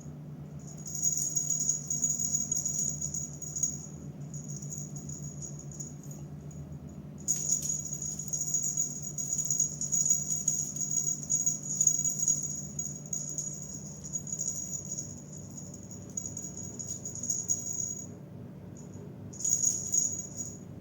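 High-pitched jingling, like a small bell or rattle, in bursts of a few seconds, with one long stretch through the middle. A low steady hum runs underneath and fades out about two-thirds of the way through.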